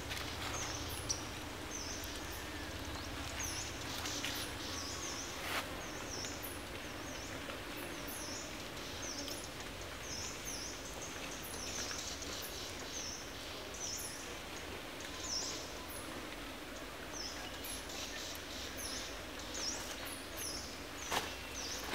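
Outdoor forest ambience: a steady background hiss with a short, high chirp repeating about once or twice a second, and a few sharp clicks, about one a second in, one near six seconds and one near the end.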